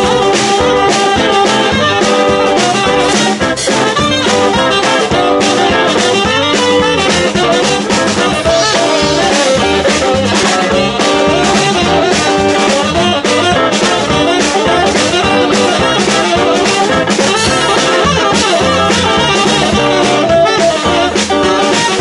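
Jazz music played by a band with horns and a drum kit.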